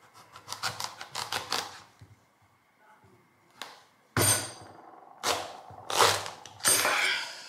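A chef's knife sawing through a hard, raw spaghetti squash on a wooden cutting board. A quick run of short strokes comes first, then after a pause four louder, longer strokes about a second apart as the blade is forced down through the flesh.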